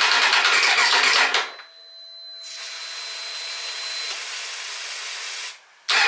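Kawasaki Z1000 inline-four engine running with an even low pulse, cut off sharply about a second in. A much quieter hiss with a faint whine follows and slowly builds. The engine running cuts back in suddenly at the very end.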